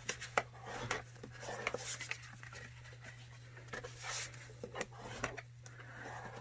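Paper being folded and burnished along its score lines: soft rubbing and scraping strokes with scattered light taps and crinkles, over a steady low hum.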